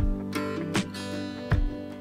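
Background music with a steady beat of low thumps about every three quarters of a second.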